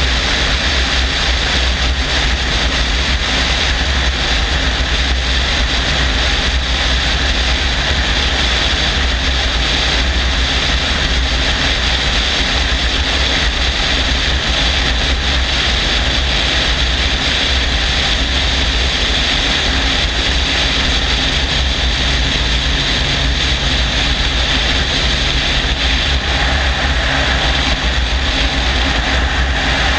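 Helicopter in flight, heard from a camera mounted on its outside: a loud, steady drone of engine and rotor with a deep rumble underneath, unchanging throughout.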